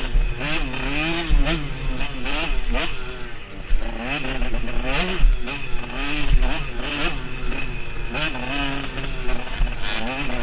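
Dirt bike engine running under the rider, its pitch climbing and falling about once a second as the throttle is opened and closed on a trail, with scattered knocks and rattles over the ground.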